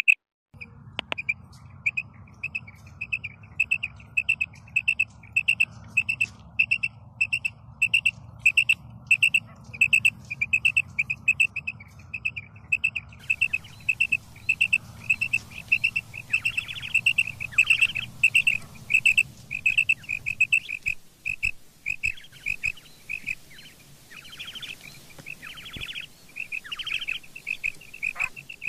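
Female common quail (batair) calling: short high notes repeated about two to three times a second, with longer trilled notes mixed in over the second half.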